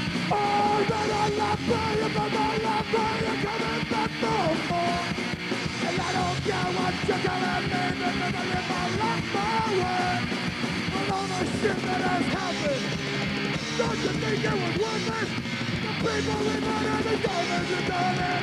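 Punk rock band playing an instrumental passage, loud and dense, with sustained guitar notes that bend in pitch.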